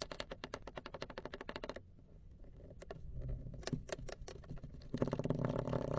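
Clay being worked by hand, giving a fast run of crisp clicks, about ten a second, then a few separate clicks, and a dense crackling from about five seconds in.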